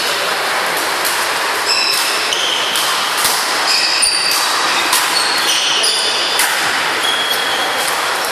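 Badminton rally on an indoor wooden court: sharp racket hits on the shuttlecock and many short, high squeaks of shoes on the floor, over a steady hall noise.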